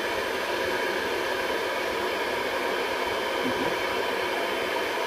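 Small battery-powered vacuum suction motor running at full speed, a steady airy rush with a faint steady whine, drawing air in through its nozzle.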